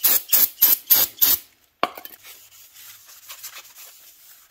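Degreaser being sprayed onto a new clutch pressure plate in about five quick squirts, then a sharp knock, followed by a rag rubbing over the plate's surface to wipe it clean.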